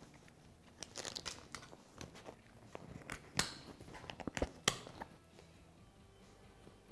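Rustling and crinkling of a heavy nylon and TPU duffel bag as it is handled and set back onto motorcycle luggage, with a few sharp clicks, loudest about three and a half and four and a half seconds in. It goes quieter near the end.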